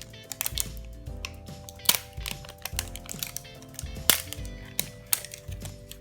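Irregular sharp cracks and clicks as the outer layer of a toy egg is peeled off by hand, the loudest about two and four seconds in, over background music.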